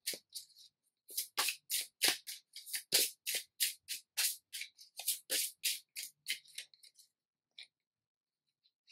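A 36-card oracle deck shuffled by hand: a quick run of soft papery card slaps, about four a second, that stops about seven seconds in.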